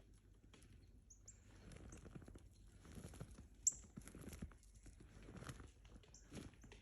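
Faint crunching in cold snow, a few irregular steps about a second apart, with several short high bird chirps over it, the loudest a sharp chirp about halfway through.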